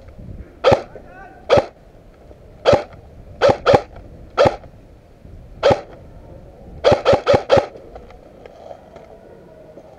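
Airsoft guns firing single shots in an exchange of fire, about eleven sharp cracks at uneven intervals, with a quick string of four about seven seconds in.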